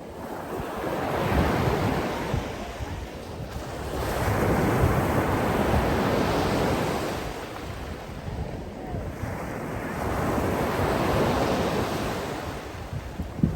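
Sea waves washing ashore in slow surges, each rising and falling away over a few seconds, with wind buffeting the microphone.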